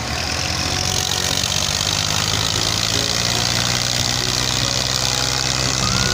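Tractor diesel engines running steadily under heavy load: a Massey Ferguson labouring in deep sand while a 480 Power Plus tows it out on a chain.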